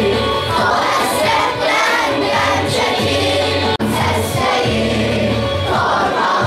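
A group of schoolgirls singing a song together over a recorded backing track with a steady low beat. The sound drops out for an instant about four seconds in.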